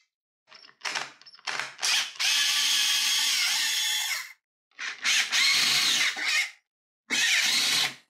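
Cordless drill-driver backing out the screws that hold a telescope's primary mirror cell: two brief blips of the motor, then three longer runs of one to two seconds each, with pauses between screws.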